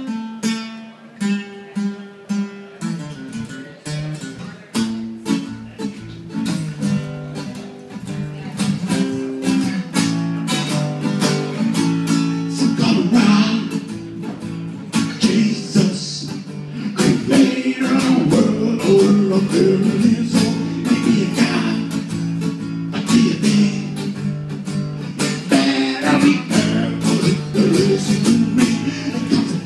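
Acoustic guitar played live, separate plucked notes at first and then fuller strumming, with a man singing over it from about twelve seconds in.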